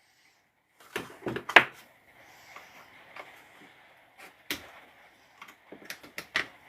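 Parts of a cordless angle grinder being handled and worked on: a quick cluster of sharp clicks and knocks about a second in, then scattered single knocks and clicks.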